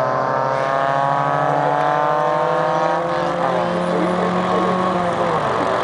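Drag-racing cars' engines at full throttle down the strip. The high engine note climbs slowly, then changes pitch about three seconds in.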